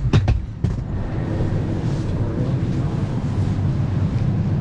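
Steady low rumble inside a parked Boeing 757-200's cabin, with two sharp clicks in the first second.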